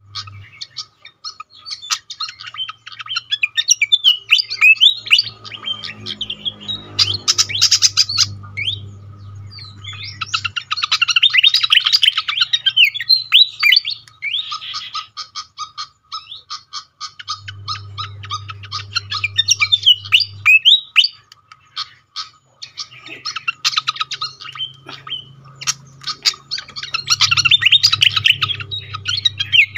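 Pied fantail (sikatan kipas) calling in bouts of rapid chattering chips mixed with squeaky, sliding whistled notes.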